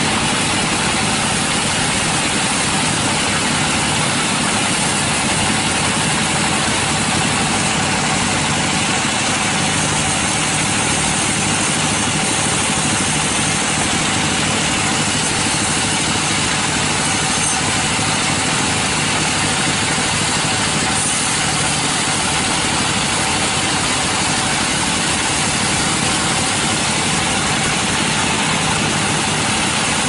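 Vertical band sawmill running steadily as its band blade saws a large log lengthwise, an even, unbroken noise.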